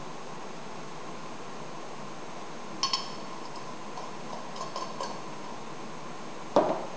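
Small metallic clicks and clinks as the parts of an antique cylinder phonograph are handled, with a louder knock near the end.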